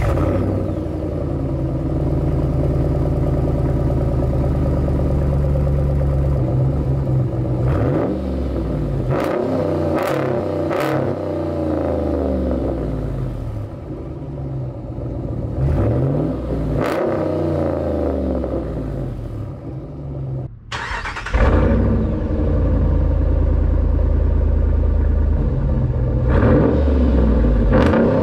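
Dodge Ram 1500's 5.7 Hemi V8 through a muffler delete pipe with the resonators kept in the tailpipes: it idles steadily, then is revved in a string of throttle blips that rise and fall. About 21 seconds in the sound breaks off and comes back louder, running steadily.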